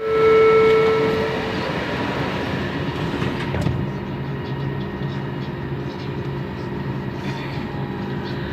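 Bombardier Innovia Metro 300 train running, heard from inside the car: a steady rumble with a low hum. It opens with a clear steady tone that fades out after about a second and a half.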